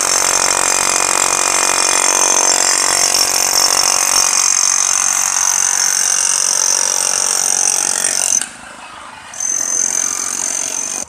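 Electric demolition hammer chiselling up old asphalt, hammering continuously, then stopping suddenly about eight and a half seconds in and starting again a second later. The portable generator powering it runs underneath and is heard alone during the pause.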